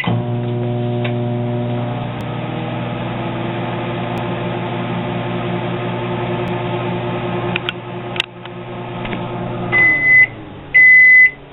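Kenmore microwave oven running a 10-second cook cycle: a steady hum from its magnetron and fan that clicks off about eight seconds in and winds down, followed by two long beeps signalling the end of the cycle.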